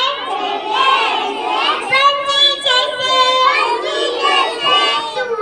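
Young children singing a prayer together, with drawn-out notes.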